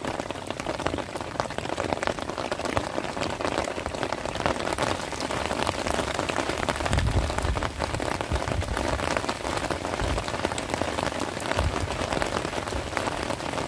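Heavy rain falling onto the open water of a reservoir, a dense steady hiss of countless drops striking the surface.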